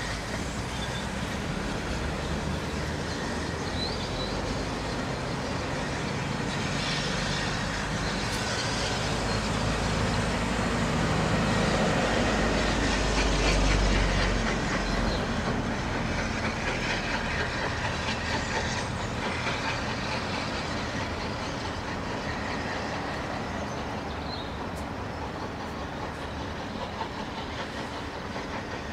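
Steam-hauled passenger train pulling away, its wheels rumbling and clattering over the track. The sound swells about halfway through, then fades as the train draws off into the distance.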